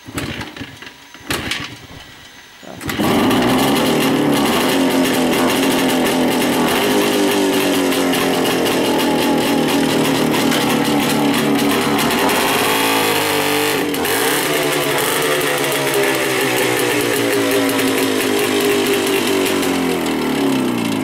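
Motorcycle being kick-started: a few sharp kicks and coughs in the first seconds, then the engine catches about three seconds in and runs loudly, revved up and down, its pitch falling near the end.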